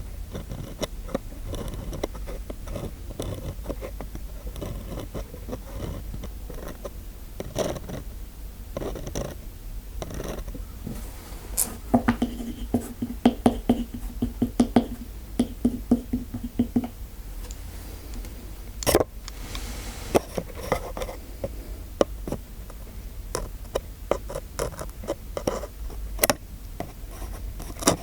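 Close-miked ASMR scraping, scratching and small tapping clicks from a dentist-themed role-play. About twelve seconds in comes a low pulsing buzz with sharper clicks that lasts some five seconds.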